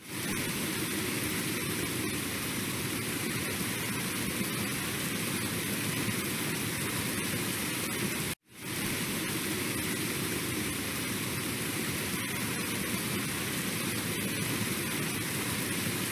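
Steady, even rushing noise with no distinct events; it cuts out briefly about eight seconds in.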